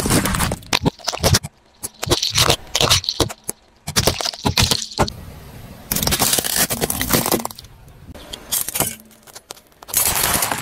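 Car tyre rolling over and crushing small plastic toys on asphalt: several bursts of sharp cracking, snapping and crunching, with grit scraping under the tread, separated by short pauses.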